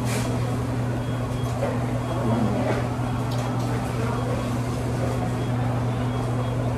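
Restaurant room noise: a steady low hum with faint background voices and occasional small clicks.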